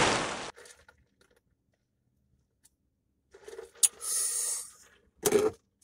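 A long hissing sip through a drinking straw from a large cup ends about half a second in. A few seconds later comes a breathy exhale after the drink, then a short mouth sound.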